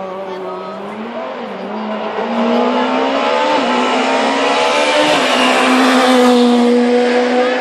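Rally car approaching at speed, its engine held at high revs with a steady note that steps slightly in pitch, growing louder to a peak about six seconds in.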